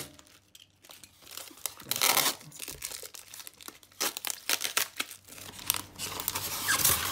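Clear plastic wrapping crinkling and tape tearing as it is peeled by hand off a polystyrene foam shipping box, which is then opened. A burst of crinkling comes about two seconds in, and steady crackling from about four seconds on.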